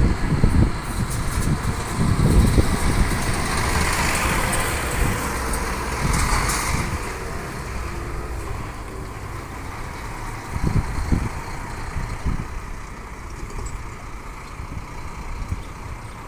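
Irizar intercity coach driving past and pulling away, its diesel engine and tyres loudest a few seconds in, then fading as it moves off down the street.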